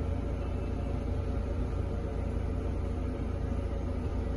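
Steady low rumble of a Mercedes-Benz O500RS 1836 coach running, even in level with no distinct events.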